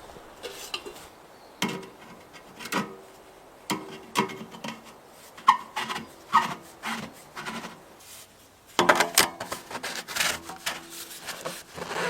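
Wood being scraped by hand in irregular strokes, with a denser run of strokes near the end.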